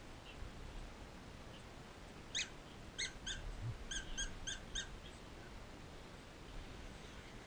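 Pug whimpering: a run of about seven short high squeaks over two and a half seconds, the first bending down in pitch.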